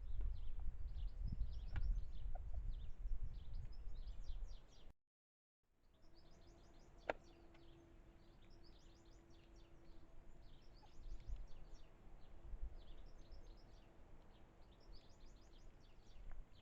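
Small birds chirping and singing in quick repeated high notes, with a low wind rumble during the first few seconds. The sound cuts out completely for about half a second, then the birdsong goes on more quietly over a faint steady hum and one sharp click.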